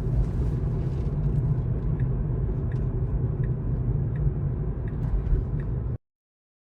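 Road and tyre rumble inside the cabin of a 2024 Tesla Model 3 AWD, an electric car, driving at town speed. Faint ticks come about every 0.7 seconds, and the sound cuts off suddenly near the end.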